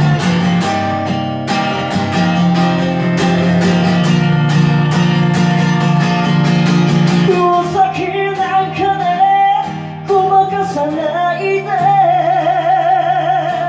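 Acoustic guitar playing sustained chords in the instrumental break of a slow ballad, then a wavering melody with vibrato, sung or played, comes in about halfway through over the guitar.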